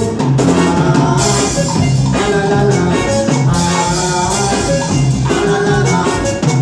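A live band playing a Latin dance song at full volume, with drum kit and guitar over a steady, repeating beat, in an instrumental stretch without singing.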